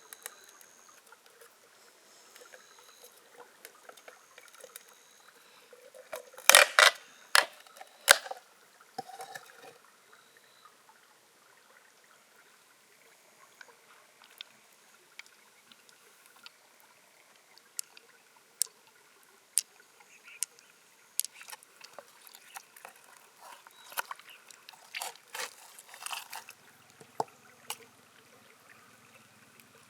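Hard clicks and knocks of shells being handled, with light trickling water. A cluster of louder knocks comes about six to eight seconds in, and scattered smaller clicks later on.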